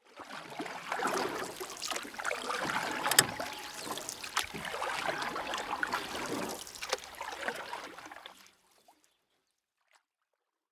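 Water splashing and sloshing around a small rowboat, with scattered knocks and one sharp knock about three seconds in; it stops abruptly a little past eight seconds.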